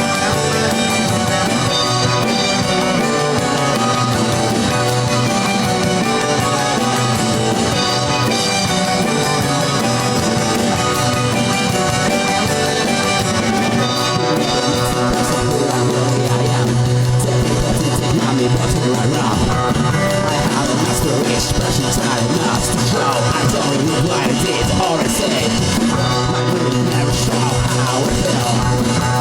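Alternative rock band playing live in the studio, with drum kit and guitars.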